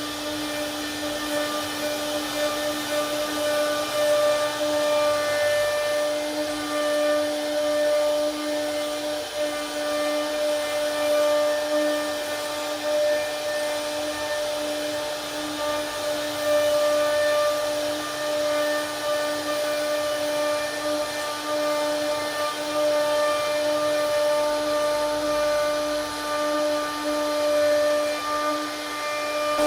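CNC router spindle running steadily as it carves wood, a constant whine over rough cutting noise.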